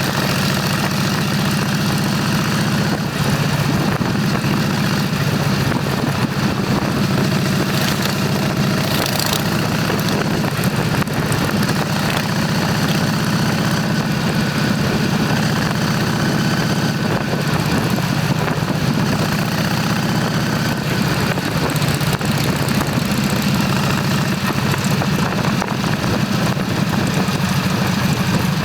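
Motorcycle engine running steadily at an even pitch, under a constant rushing noise.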